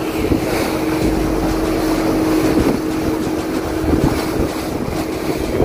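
Motorboat engine running steadily under way, with wind blowing across the microphone.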